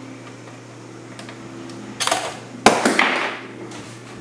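A few sharp clicks about two seconds in, then a loud hard knock with a short clattering, ringing rattle as a hand tool or metal part is handled and set down. A low steady hum runs underneath.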